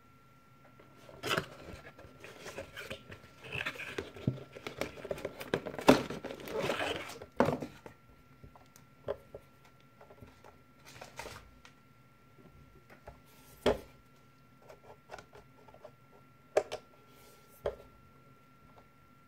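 A cardboard box being handled and slid off a plastic Facebank coin bank: several seconds of rustling and scraping of cardboard, then scattered light knocks and taps as the bank is handled and set down. A faint steady high tone sits underneath.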